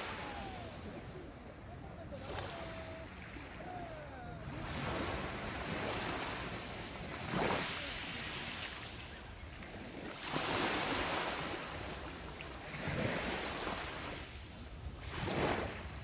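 Small sea waves breaking and washing up a pebble-and-shell beach, each wash swelling and fading back into a steady hiss, one every two to three seconds, the stronger ones in the second half.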